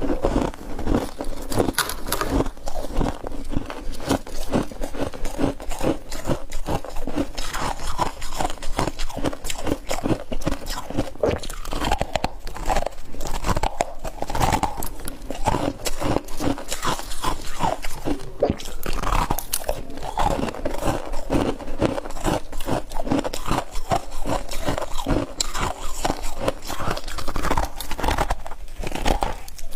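Someone biting and chewing crunchy chunks of frost close to the microphone: a dense, continuous run of sharp crunches.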